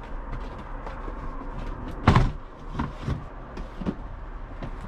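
Storage drawers being pulled out and emptied of fishing gear: scattered knocks and clatter, with one loud thud about two seconds in.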